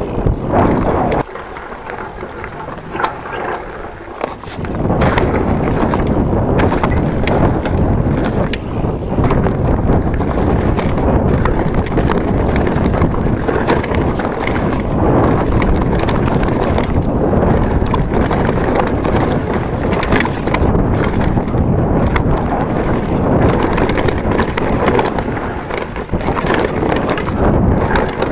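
Giant Trance 1.5 27.5" full-suspension mountain bike riding fast down dirt singletrack: rushing wind on the microphone mixed with tyre noise and the rattle and knocks of the bike over roots and bumps. It is quieter for about three seconds near the start, then loud and steady.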